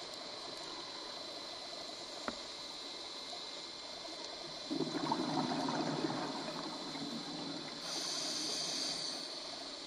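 Underwater breathing of a scuba diver through a regulator: a gurgling burst of exhaled bubbles about five seconds in, lasting over a second, then a high hiss of the next inhalation near the end. A steady underwater hiss runs beneath, with a faint click about two seconds in.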